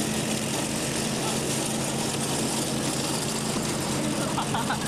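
Riding lawn mower engines running steadily at racing speed: a constant, even drone with a broad hiss over it.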